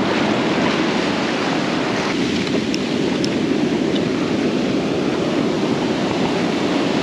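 Ocean surf breaking and washing up over the sand: a steady rushing noise of waves in the shore break.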